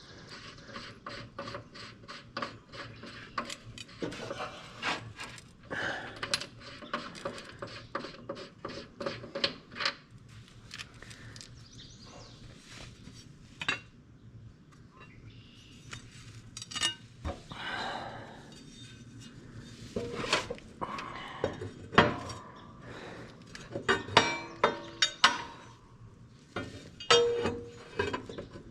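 Hand tools working on a mower blade: fast runs of metallic clicks like a socket ratchet, then scattered clinks and knocks of steel tools and parts.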